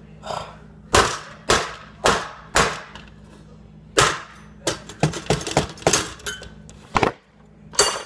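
A computer motherboard being hit repeatedly with a hand-held object: about a dozen sharp, hard hits at an uneven pace, with a quick run of them around the middle.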